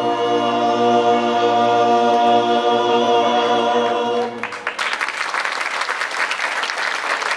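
Klapa, an unaccompanied Dalmatian vocal group, holding the closing chord of a song in close harmony. About four seconds in the singing stops and the audience breaks into applause.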